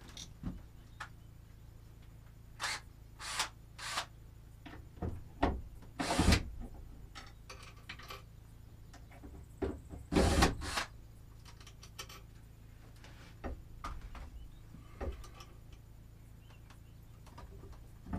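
Cordless drill fitted with a bit extension driving mounting screws into a plywood wall in several short bursts, the longest about ten seconds in, with clicks and knocks of handling between.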